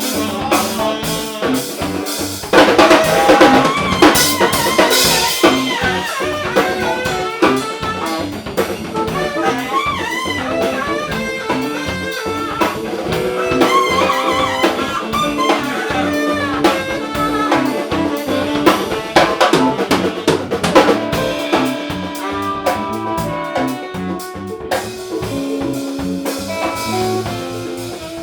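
Instrumental jazz-style jam in A minor: a drum kit keeps time under a bending melodic lead line.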